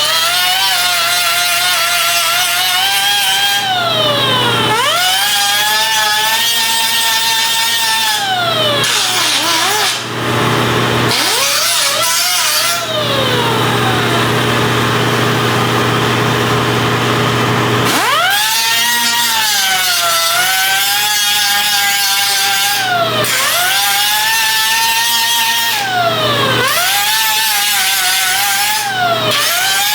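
Handheld power tool motor whining at high speed, dragging down in pitch under load and winding back up several times. Its pitch glides right down once or twice as it is released and spun up again, with a stretch of harsher grinding or cutting noise in the middle.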